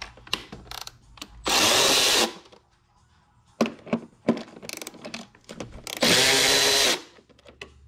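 Milwaukee M12 Fuel cordless electric ratchet spinning out M6 bolts from a plastic timing-belt cover: a short run of the motor about one and a half seconds in and a second run, about a second long, near the end, with scattered sharp clicks between.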